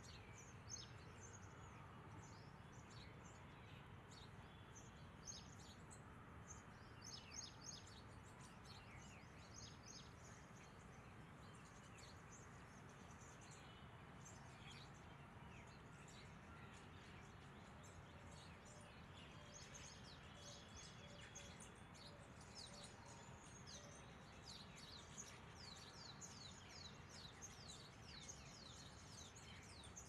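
Faint birds chirping: many short, high calls, scattered at first and coming thicker in the second half, over a low, steady background hiss.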